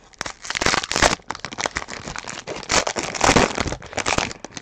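Foil wrapper of a baseball-card pack crinkling and crackling as it is handled, in bursts that are loudest about a second in and again a little past three seconds.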